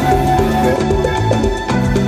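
Background music: a moving bass line and melody notes over a steady beat.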